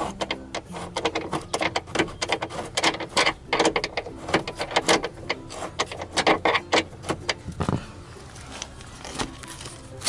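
Ratchet wrench and socket clicking as a seat belt anchor bolt is turned: bursts of quick metallic clicks that stop about eight seconds in.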